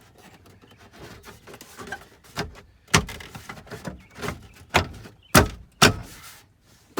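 Plastic under-dash trim tray of a Jeep being pressed into place: a series of sharp snaps and knocks as its clips click into the dash, the loudest in the second half.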